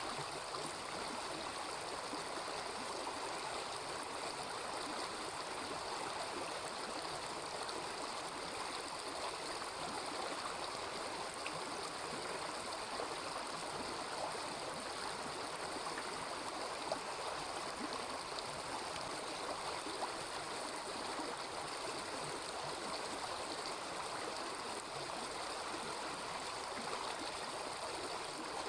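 A small river flowing with a steady, even babbling rush of water, plus a couple of faint brief clicks around the middle.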